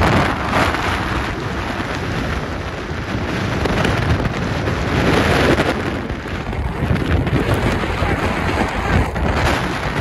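Blizzard wind gusting hard over the microphone, a loud continuous rush that swells and eases, with wind-driven snow; the winds are gusting past 60 mph.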